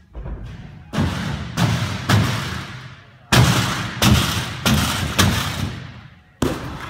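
A gymnast's tumbling pass on a sprung tumble track: a run of about eight sharp thuds, half a second to a second apart, as hands and feet strike the track, each echoing in the big hall, with a heavy landing thud on the mat near the end.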